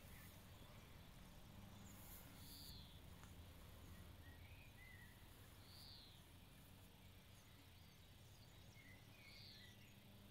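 Near silence with faint ambient noise. A bird calls softly three times, a short note about every three and a half seconds.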